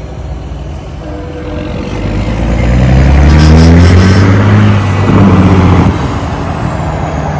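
Diesel semi truck's engine pulling away as it drives past, its pitch climbing, dropping at a gear change about two thirds of the way through, then climbing again; the deep engine note grows loud from about two seconds in.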